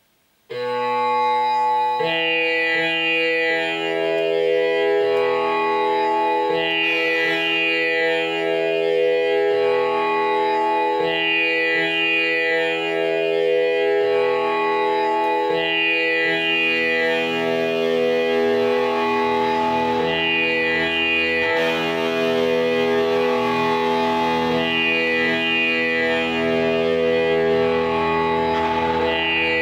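Electric guitar playing a slow raga-style improvisation, coming in about half a second in: long sustained notes that ring on and overlap one another, over lower notes that change every second or two.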